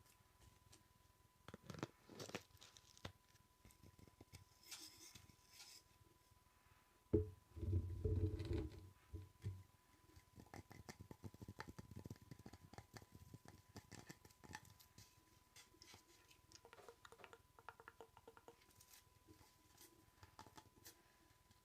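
Close-miked ASMR tapping and scratching: many light, quick taps and clicks, with a louder, low rumbling handling noise about seven to nine seconds in.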